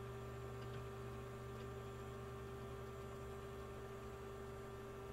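Steady electrical hum with a constant mid-pitched tone over a low drone.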